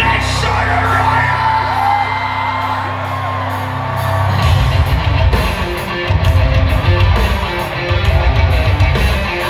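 Live rock band playing loud through a large PA, heard from the crowd. Held guitar and bass chords ring out, then the drums and full band crash in about four and a half seconds in.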